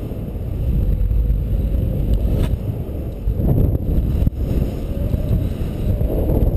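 Airflow buffeting the microphone of a paraglider pilot's camera in flight: a loud, low, gusting rush that dips about three seconds in and swells again.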